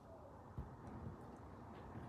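Quiet handling noise from vise parts being fitted together during reassembly, with one soft low thump about half a second in.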